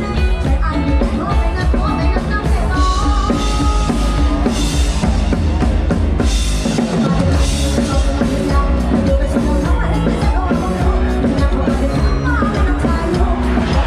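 Lam sing band music in an instrumental passage with no singing, driven by a drum kit with a heavy bass drum.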